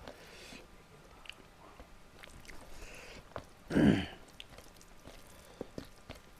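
Close-miked chewing of a mouthful of chicken liver and rice, with small wet mouth clicks. About four seconds in comes one short, much louder mouth or throat sound.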